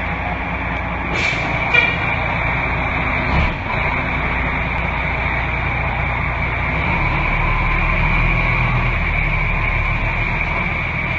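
Fire engine's diesel engine running as the apparatus pulls out of the station bay, with a short hiss about a second in, like an air-brake release, and a knock at about three and a half seconds. The engine grows louder from about seven seconds as it pulls away, over a steady high-pitched tone.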